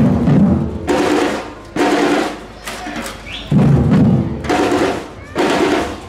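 A street drumming band plays large silver-shelled drums with padded beaters and sticks. Loud accented strokes come about once a second, with quieter drumming between them.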